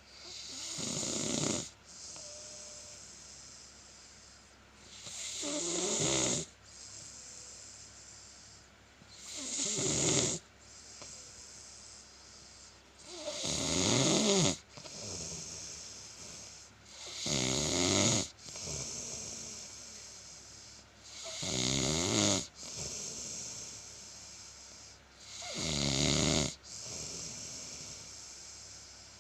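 Deep, regular snoring from a worn-out sleeper: seven rattling snores on the in-breath, one about every four seconds, each swelling and then cutting off sharply, with quieter breathing between.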